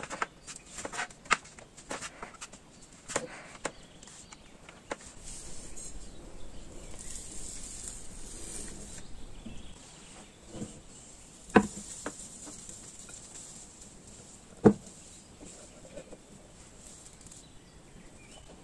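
Gouda cheese grated on a plastic grater with metal teeth: a run of quick, uneven scraping strokes over the first few seconds. Later come two sharp knocks, the loudest sounds, as a glass bowl of risen dough is handled on the counter.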